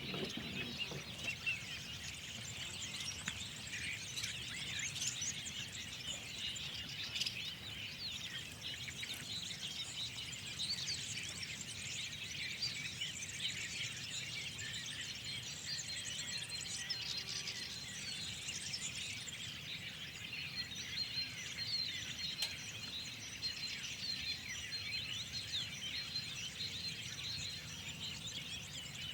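Many small birds chirping and calling at once in a dense, continuous chorus of quick high chirps and trills.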